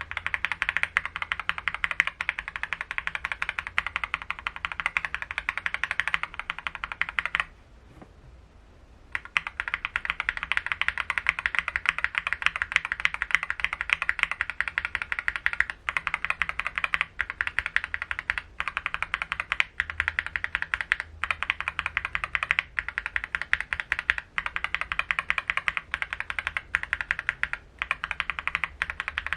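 Fast typing on a mechanical keyboard fitted with Akko linear switches: a dense run of keystrokes that stops for about a second and a half roughly a quarter of the way in, then resumes.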